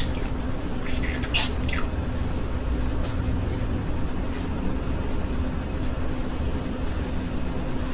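Pet budgerigar giving a few short chirps about a second and a half in, then falling quiet over a steady low hum.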